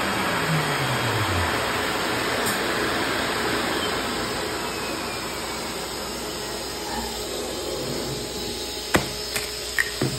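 MultiCam 3000 CNC router's spindle winding down, its pitch falling over the first second and a half, over the steady rushing noise of the vacuum hold-down, which slowly fades. Several sharp taps near the end.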